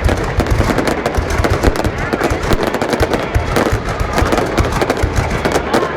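Fireworks display going off in a dense, continuous barrage of rapid bangs and crackles.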